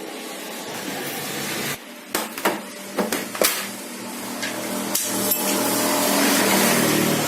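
Several sharp clicks and knocks from handling the LCD TV set as work on it begins, over a steady rushing noise that fades out briefly and then swells toward the end.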